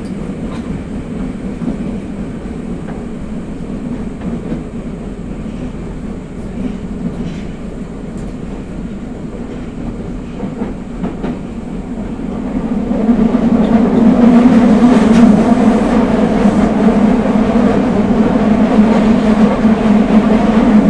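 Nagoya Municipal Subway 5050-series train, with Hitachi GTO-VVVF control, running through the tunnel: a steady rumble of wheels on rail that grows louder about thirteen seconds in.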